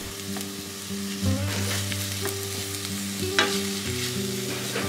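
Ground pork stir-frying in a frying pan, sizzling steadily in hot oil as it is stirred, with a few short scrapes or knocks against the pan.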